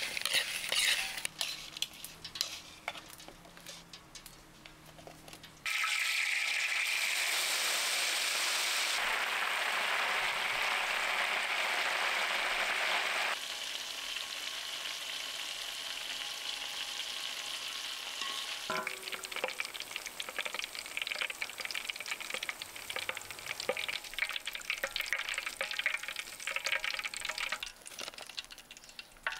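Crickets being mixed in a bowl give light clicks. About six seconds in, a loud steady sizzle starts as they deep-fry in hot oil in a wok. It then eases to a lighter crackling sizzle with clinks and scrapes of a wire skimmer stirring them.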